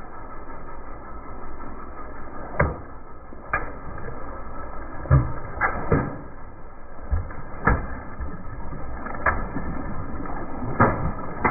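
A car tyre rolling slowly over a row of water balloons, bursting them one after another: about eight sharp pops with splashes of water, starting about two and a half seconds in, over a steady low rumble.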